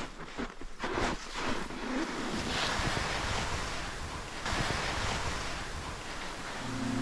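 Skis hissing and sliding through snow, in uneven swooshes for the first couple of seconds and then a steadier rush, mixed with wind over the GoPro microphone. Music comes in just before the end.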